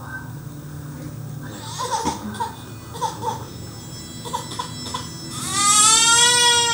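Infant crying: a few short, fussy cries, then a loud, long wail about five seconds in that falls in pitch as it ends. The baby is crying because the other baby has taken its milk bottle.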